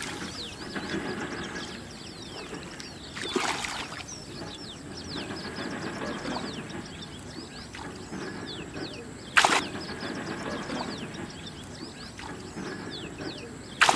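A hooked catla fish thrashing in shallow lake water, splashing briefly about three and a half seconds in, with one sharp crack about nine and a half seconds in. Birds chirp throughout in short falling notes.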